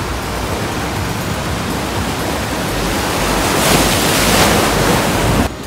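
Surf breaking and washing over shore rocks in a continuous loud rush of water. It swells louder about three and a half seconds in, then cuts off abruptly near the end.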